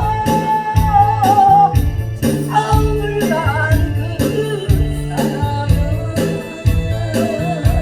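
A singer performing a song over accompanying music with a steady beat and bass line, holding long notes.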